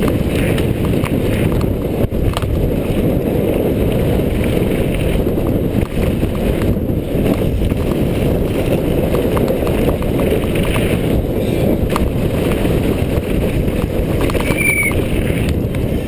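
Hardtail mountain bike descending a gravel downhill course at speed: steady wind buffeting on the rider-mounted camera's microphone, mixed with tyres rolling over dirt and loose stones and small knocks from the bike. A brief high squeak comes near the end.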